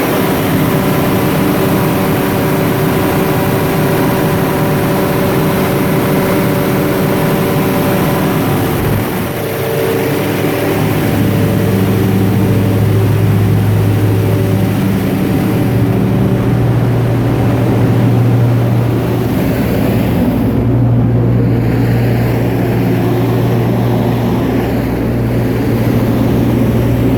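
Cummins Onan V16 turbo diesel generator running loud and steady under a load test. It dips briefly about nine seconds in, after which a deep hum comes to the fore.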